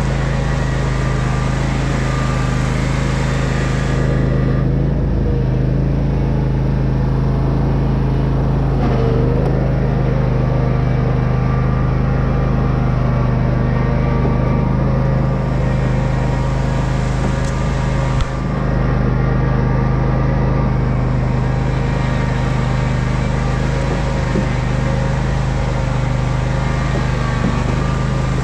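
Simplicity 16 hp lawn tractor engine running steadily under load as the tractor drags a chained log, a loud, even drone.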